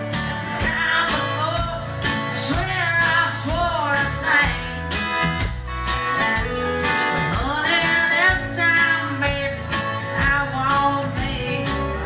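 Live country band: a woman sings over strummed acoustic guitar and electric guitar, with drums keeping a steady beat.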